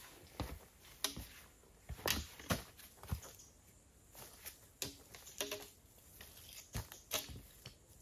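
Hiking-boot footsteps on loose rocks, with the metal tips of trekking poles clicking against stone: an irregular series of faint crunches and sharp knocks.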